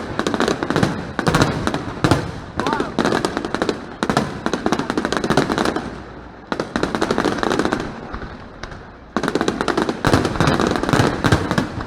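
Fireworks display: shells bursting and crackling in rapid, dense succession, thinning out briefly about two-thirds of the way through before a thick volley of cracks near the end.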